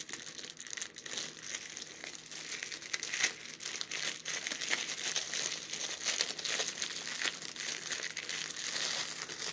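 Clear plastic wrapping crinkling in irregular crackles as hands peel it off a small metal candle snuffer.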